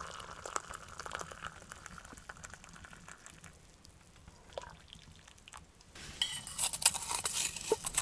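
Just-boiled water poured from a kettle into a mug, with a hissing stream that tapers off after about two seconds. A few small clinks follow, then near the end a spoon scrapes and clinks in a tin can.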